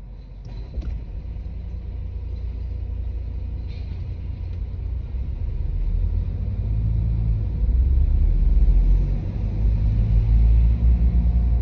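Low rumble heard inside the cabin of a moving BMW 218d Active Tourer, building steadily louder, with a few faint clicks near the start.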